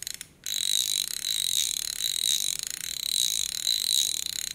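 Star drag of a Daido King Predator XL 400L baitcasting reel being turned, its drag clicker giving a fast, steady run of clicks that starts about half a second in; it sounds fairly loud.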